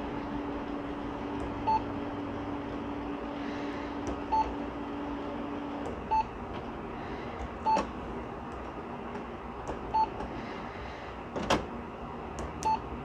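Canon printer control panel giving a short, high beep at each button press, six beeps one to three seconds apart. A steady low hum runs underneath and stops about halfway through, and a sharp click comes near the end.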